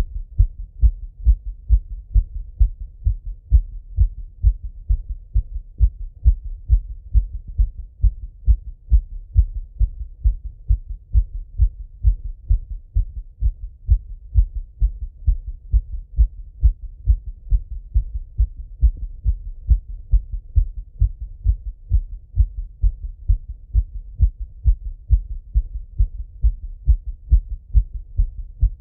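A man's heartbeat heard through a Littmann stethoscope on the chest: steady, fairly fast low thumps at about one and a half beats a second. The heart is recovering after a run.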